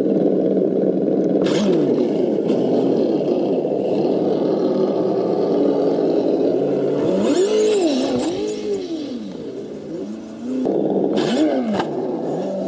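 Simulated engine sound from an Associated ESS-One sound unit on a Tamiya Lunch Box RC monster truck, playing its stock factory sound and following the throttle. It holds a steady drone, then revs up and down several times past the middle, drops away briefly, and comes back revving near the end.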